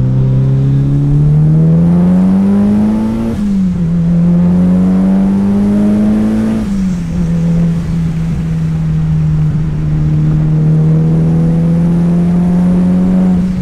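Mitsubishi Lancer Evo's turbocharged four-cylinder engine pulling hard through the gears, heard from inside the cabin. The revs climb, drop at a gear change about three seconds in, climb again and drop at a second change about halfway through, then hold nearly steady.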